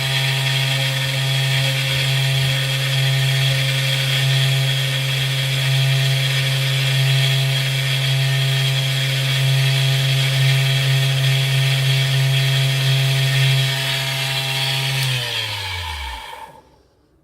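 Small electric power tool motor running steadily at constant speed while the tip is taken off a 3 mm brass rod, then switched off and spinning down near the end.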